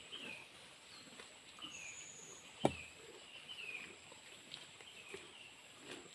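Cows pulling and chewing cut green fodder in a wooden trough, the leaves rustling and crunching. A bird repeats a short falling chirp again and again over a faint steady high whine, and a single sharp knock sounds about two and a half seconds in.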